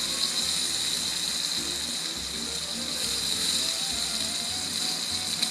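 Wagyu New York strip steak with garlic butter sizzling steadily on a Blackstone flat-top griddle, with faint background music.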